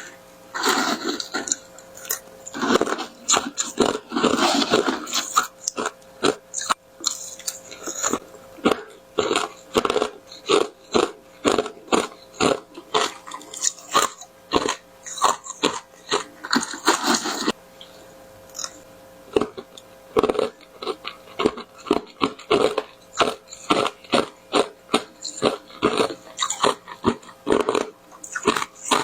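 Close-up crunching and chewing of large, hard tartary buckwheat granules, a fast run of sharp crunches about two to three a second, with a brief pause a little past halfway.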